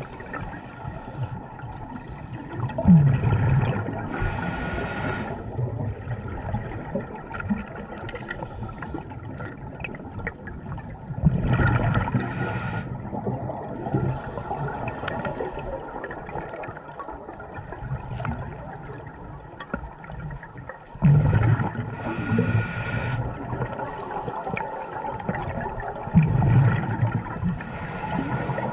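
Scuba diver breathing through a regulator, heard underwater: four breath cycles about every eight seconds, each a rumbling gush of exhaled bubbles with a regulator hiss, over a steady low underwater rumble.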